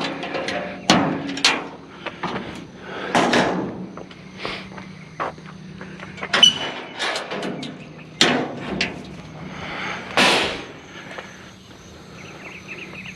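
Irregular knocks and clanks, with a few longer scraping swells, as a discarded treadmill is handled and shifted about.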